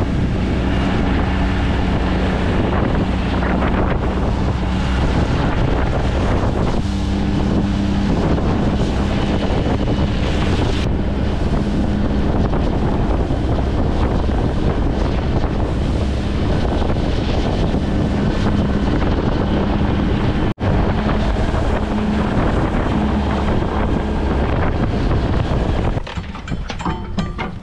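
Yamaha outboard motor running at speed, driving a small aluminium boat, with wind buffeting the microphone and water rushing past the hull; the engine hum wavers in pitch now and then. Near the end it gives way to quieter metallic clinking of an anchor and chain being handled.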